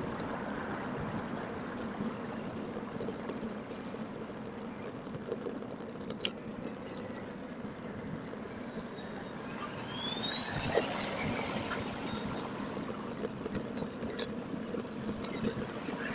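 Steady road-traffic and wind noise heard from a moving bicycle, played back at double speed. About ten seconds in, a vehicle passing close brings a louder stretch with a short rising whine.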